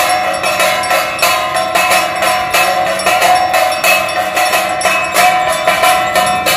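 Aarti bells clanging rapidly and without a break, about four metallic strikes a second, over a steady ringing.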